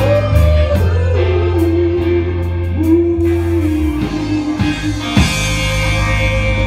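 Live rock band playing: distorted electric guitars, bass and drums under a singer holding long notes. The heavy low notes drop out about four seconds in, and a cymbal crash rings on from about five seconds in.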